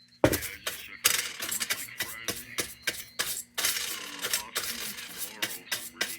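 Irregular clatter of taps, clicks and scrapes on the metal fount of a Perfection No. 550 kerosene heater as dried debris is cleaned out of it, opening with a sharp knock.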